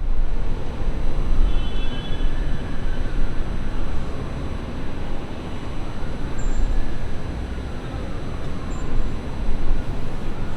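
Night-time city ambience: a steady low rumble of traffic, with a faint siren slowly wailing up and down about every five seconds.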